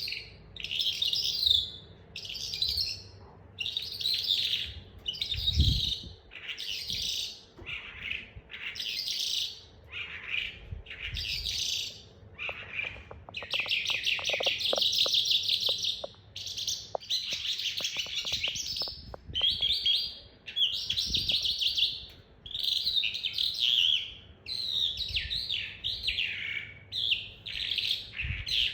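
Young hand-raised calandra lark singing: a string of short, high, scratchy chirping phrases with brief gaps, broken in the middle by two longer rapid rolling trills as it practises its roll.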